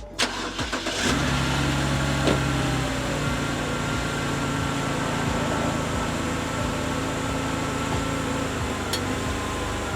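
Car engine cranking and catching about a second in, then idling steadily, the idle settling slightly a couple of seconds later.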